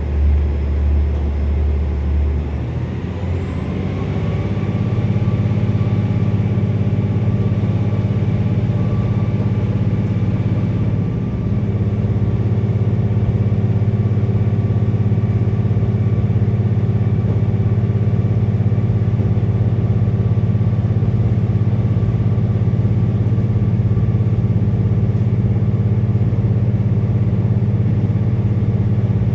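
KiHa 47 diesel railcar's underfloor diesel engine and transmission under way. The engine note rises over the first few seconds, with a thin whine climbing alongside, and then runs steady under clattering running noise.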